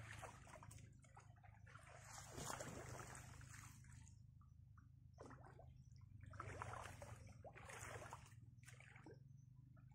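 Faint water splashing and trickling in about six short spurts.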